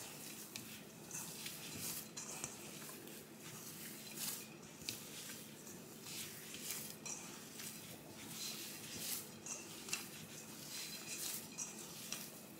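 Hand kneading soft dough in a stainless steel bowl: faint, irregular squishing and light scuffs and knocks of the dough and hand against the metal bowl.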